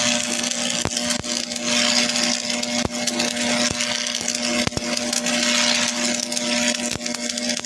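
Arc welding on steel: a steady hum with a sizzling hiss and irregular crackling clicks.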